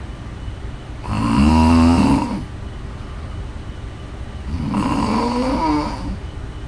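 A woman snoring: two snores, one about a second in and one about five seconds in, each lasting about a second with a wavering pitch. The first is the louder and has a fluttering rattle.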